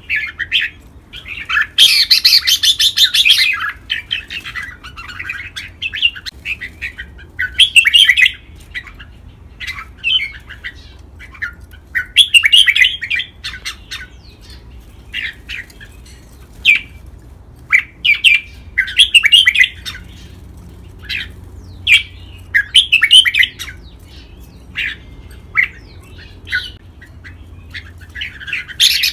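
Red-whiskered bulbuls singing, with short bright whistled phrases every second or two. A denser run of song comes about two seconds in and again right at the end.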